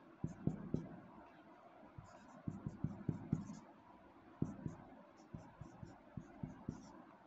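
Marker pen writing on a whiteboard: quick taps and short squeaky strokes in several bursts with brief pauses between them.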